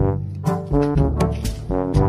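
Music with a brassy melody and percussion, cutting in suddenly.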